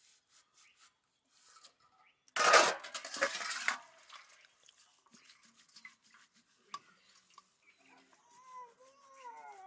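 Steel plates scrubbed by hand with a wad of straw: soft scraping and rubbing on metal, with one loud rushing scrub lasting about a second and a half a little over two seconds in. Near the end an animal gives a few wavering calls.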